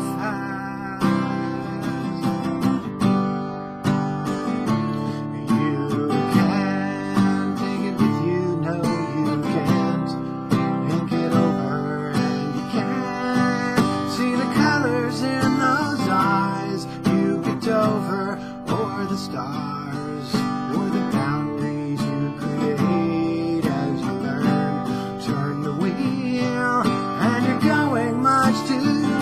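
Acoustic guitar strummed in a steady song accompaniment, with a man singing over it.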